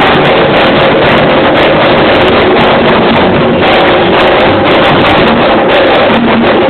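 Live go-go band music playing very loud: a dense, overdriven wash with little clear detail.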